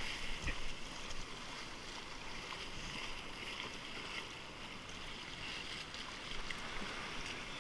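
Steady rushing and swishing of shallow surf wash as a board is towed through it on a rope.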